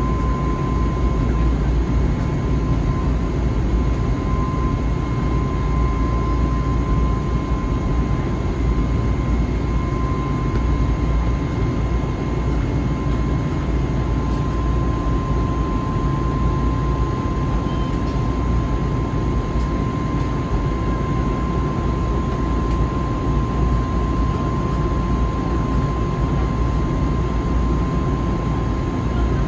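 Airbus A321neo cabin noise during climb-out, heard from a window seat over the wing: a steady low roar of engines and airflow with a thin, steady high whine. A second, fainter higher tone stops about halfway through.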